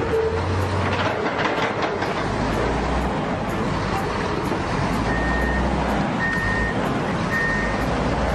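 Diesel engines of heavy earthmoving machines running, with a clatter of rock being loaded in the first couple of seconds. From about five seconds in, a backup alarm beeps about once a second.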